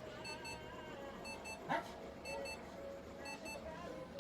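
A single short, sharp snort from a four-toed hedgehog with rhinitis, nearly two seconds in. Under it, a double electronic beep repeats about once a second.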